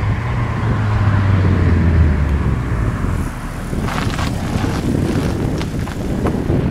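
Toyota MR2 SW20's mid-mounted 2.0-litre inline-four running as the car drives by, with a steady low engine note for the first few seconds. From about four seconds in, as the car passes close, the sound turns noisier and uneven.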